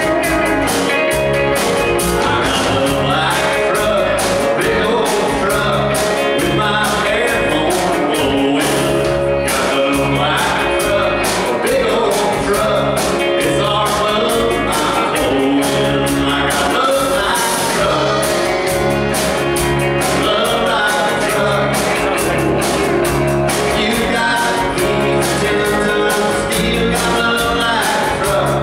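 Live band playing a country rock song: two electric guitars and a drum kit keeping a steady beat, with a male lead vocal singing over them.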